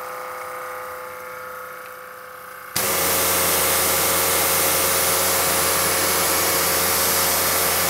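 Kranzle KWS1200TS 5 GPM electric pressure washer running with a steady hum. About three seconds in, the spray gun opens and a much louder, steady hiss of the full-flow high-pressure water jet comes in over the motor and pump drone.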